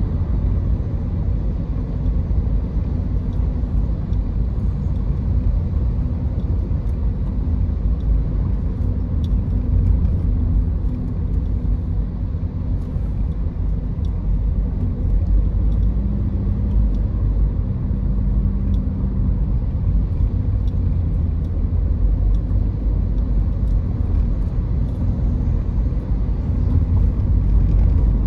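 Car driving: a steady low rumble of engine and road noise that stays even throughout.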